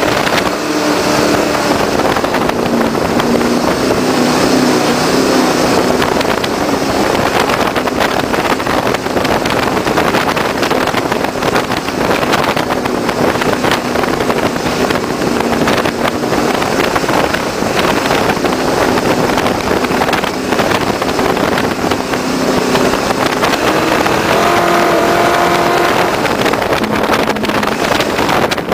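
Jersey skiff race boat's inboard engine running at speed under a steady rush of noise. Its pitch wavers up and down, with a brief rise near the end.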